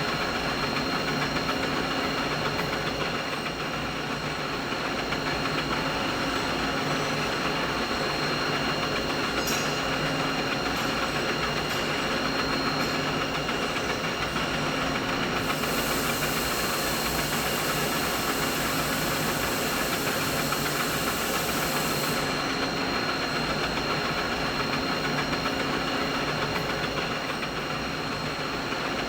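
Continuous mid-frequency machinery noise: a steady mechanical drone with a constant high whine and lower hums running under it. A brighter hiss joins about halfway through and drops away some seven seconds later.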